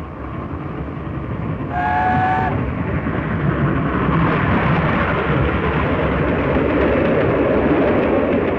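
Streamlined LNER A4 steam locomotive and its train approaching and running past at speed: a rumble that grows louder, with one short blast on the locomotive's multi-note chime whistle about two seconds in.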